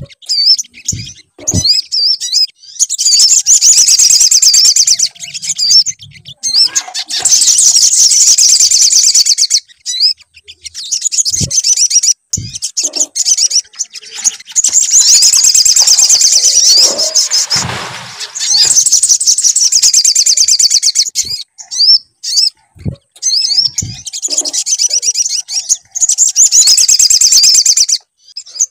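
Sogon songbird singing long, rapid, high-pitched chattering phrases of repeated notes, each run lasting several seconds with brief pauses between. This is a lure song played to set other sogon birds singing. A few soft low knocks sound in the gaps.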